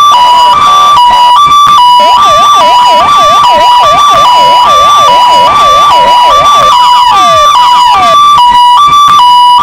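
Two electronic vehicle sirens sounding together. One plays a steady hi-lo two-tone, switching back and forth between two close pitches. From about two seconds in, the other adds rapid repeated dipping swoops, then a few quick falling sweeps, and drops out about eight seconds in, leaving the hi-lo tone alone.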